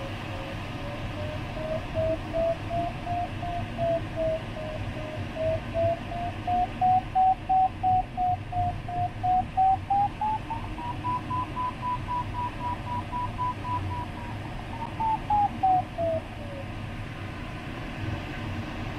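Glider's audio variometer beeping in repeated pulses over steady cockpit air noise, its pitch rising and falling with the climb rate and highest about two-thirds through: the glider is climbing in lift. Near the end the pitch falls and the beeping stops as the lift dies away near cloud base.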